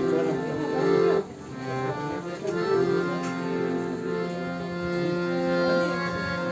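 Music led by a sustained, organ-like reed keyboard: a low drone note held under changing melody notes. The sound drops away briefly about a second in, then resumes.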